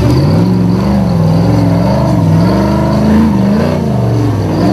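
Nissan GQ Patrol winch truck's engine revving up and down over and over, the revs rising and falling about once a second as it claws up a steep dirt wall under load.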